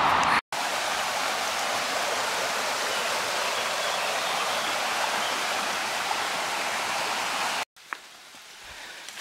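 Rushing water of a forest stream, a steady even hiss. It cuts off suddenly near the end, leaving a much quieter forest with a few faint clicks.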